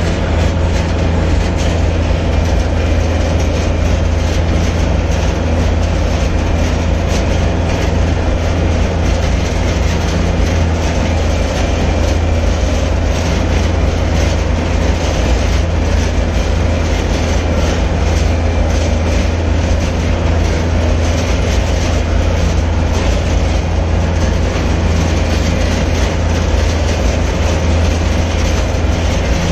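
Tractor's diesel engine running steadily at a constant speed as the tractor drives along, a loud unbroken low drone heard from on board, with a light rattle over it.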